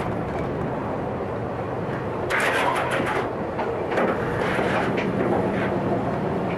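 A vehicle running steadily with a low rumble, with two spells of hissing noise about two and four seconds in.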